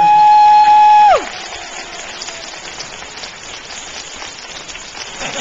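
A loud, long, high 'woo' holler held on one pitch. It slides up at the start and drops away about a second in. After it, steady crowd noise fills the room.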